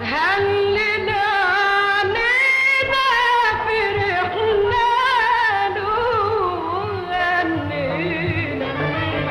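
Background music: a melismatic singing voice in a Middle Eastern style over a low accompaniment.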